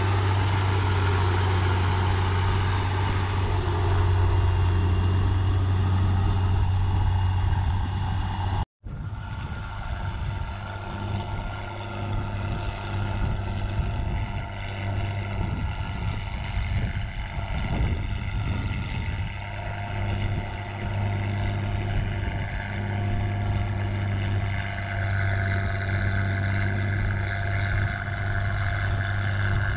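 Ford farm tractor's diesel engine running steadily under load while pulling a rotary tiller through a flooded rice paddy. The sound cuts out for an instant about nine seconds in, then a tractor engine runs on, a little quieter and less even.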